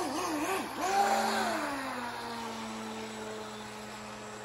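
Electric RC speedboat motor whining, its pitch swinging up and down as the throttle is worked, then held at one steady whine that drops slightly in pitch and fades as the boat runs away across the water.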